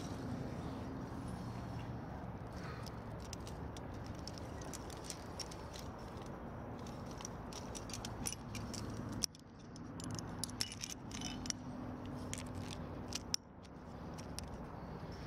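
Metal climbing gear clinking and jangling as protection is placed in a crack and a sling is clipped. The sharp clinks of carabiners and gear come in a run through the second half, over a steady low background hum.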